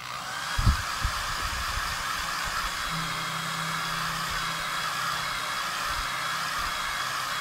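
Hand-held dryer switched on and blowing steadily, drying freshly applied chalk paste, with a couple of low knocks about a second in.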